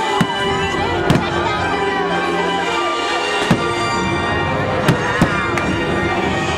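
Music playing steadily while fireworks go off, with about half a dozen sharp bangs spread through it, two of them close together near the end.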